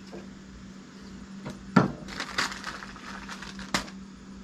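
Scattered sharp clicks and knocks of small items being handled, a syringe, a medicine vial and things set on a wooden table, with one louder knock a little under two seconds in. A steady low hum runs underneath.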